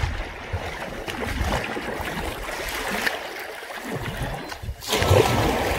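Kayaks paddling on a lake: water splashing off the paddles and rushing along the hulls, with wind rumbling on the microphone at first and a louder splash about five seconds in.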